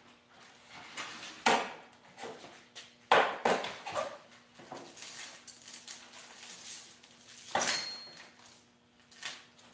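Metal clinks and knocks as parts and tools are moved about, loudest about a second and a half, three seconds and seven and a half seconds in; one clink leaves a brief metallic ring.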